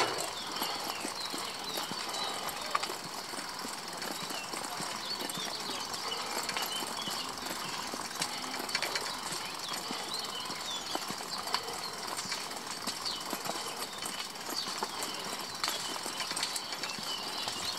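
Steady rattling and rolling noise from a vehicle with a metal front rack riding over stone paving, with many short high chirps throughout.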